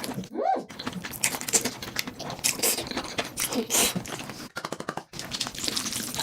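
Close-miked mukbang eating sounds of fire noodles: irregular wet chewing and slurping, with a brief lull near the end.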